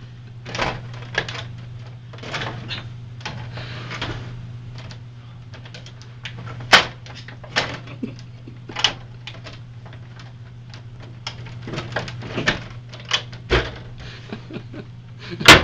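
Plastic drink bottles and containers being shoved and knocked about inside a mini fridge: irregular clunks, clicks and scrapes, the sharpest near the end, over a steady low hum.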